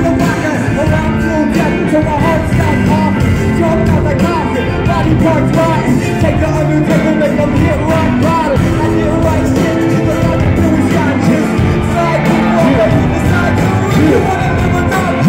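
A live band playing loud through the stage PA speakers, a steady groove with a melodic line bending up and down over bass and drums.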